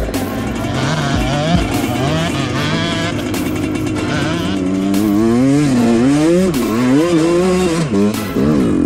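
Off-road motorcycle engine revving up and down repeatedly under changing throttle, the revs swinging wider and faster from about halfway through.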